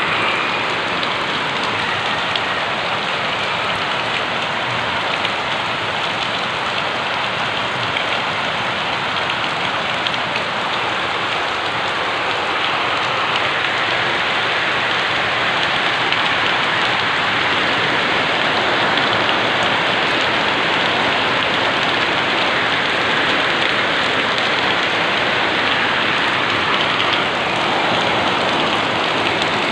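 Heavy rain falling steadily, an even rushing patter with no let-up.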